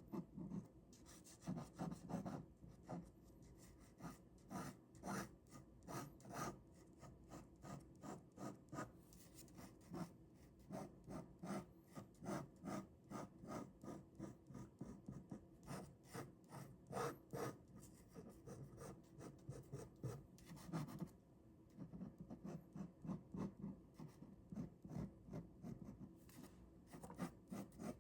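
Ballpoint pen drawing on paper: quick short scratching strokes, a few a second, with a brief pause about two thirds of the way through.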